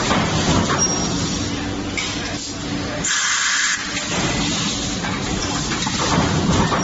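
Automated multi-station hot forging press running with a steady machine hum, and about three seconds in a short hiss of graphite lubricant spray onto the dies.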